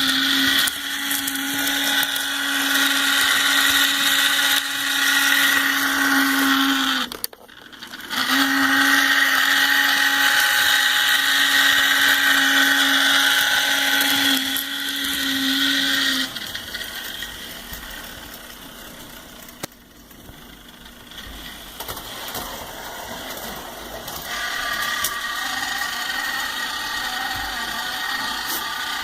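Small electric motor of a model Union Pacific locomotive running with a steady high whine, the weird noise the owner is asking about. It cuts out for about a second around seven seconds in and starts again. It drops to a quieter, rougher running for several seconds past the middle, then the whine comes back near the end.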